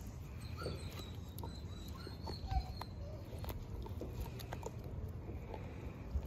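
German Shepherd puppies chewing and gnawing on raw beef bones: irregular wet clicks and crunches from teeth on meat and bone, with a dull thump about two and a half seconds in.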